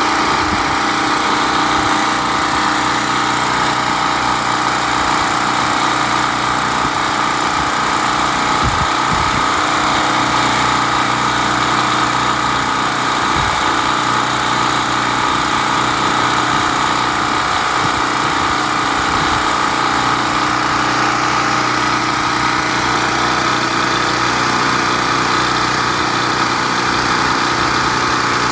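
Open-frame portable generator's gasoline engine running steadily at a constant speed, with an even hum.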